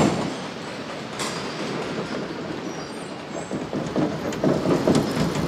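Steady rumbling noise with irregular rattling and clattering, loudest right at the start and easing off to an even level.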